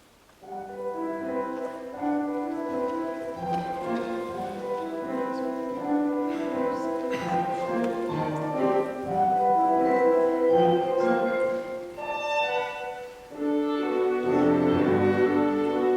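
Live orchestral music from a contemporary opera score: an instrumental passage of many sustained notes that begins about half a second in after near silence and dips briefly about three-quarters through.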